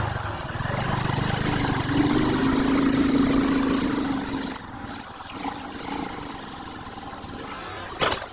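Motorcycle engine running, louder for a couple of seconds and then falling away as the bike rolls out along a wooden plank bridge. A sudden crash comes near the end as the bridge tips over under the bike.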